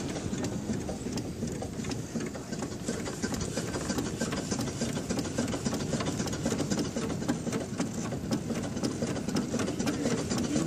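1910 Stanley Steamer under way on pavement, heard from its seat: a fast, steady mechanical clatter from the running steam car.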